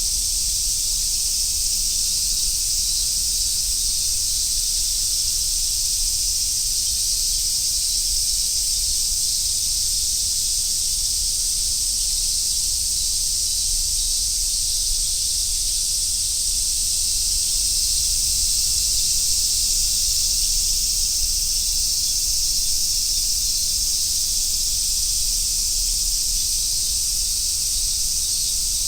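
Dense chorus of summer cicadas, among them large brown cicadas (aburazemi), making a steady high hiss that does not let up.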